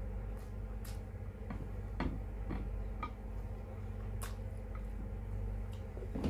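Close-up eating sounds: a few scattered wet mouth clicks and smacks while chewing fish stewed in vinegar, over a steady low hum.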